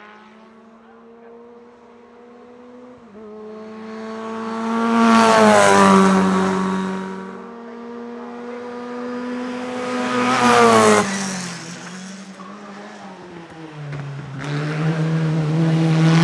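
A single-seater hillclimb race car's engine accelerating hard up through the gears. Its pitch climbs and then drops at each upshift. It is loudest about five and ten seconds in, with the pitch falling as it goes by, and an engine builds again near the end.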